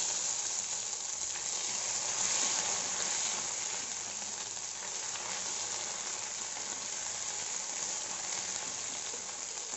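Garlic paste sizzling hard in hot oil with cumin seeds and whole spices in a kadhai, being stirred with a steel ladle. The sizzle is loudest about two seconds in, then eases a little.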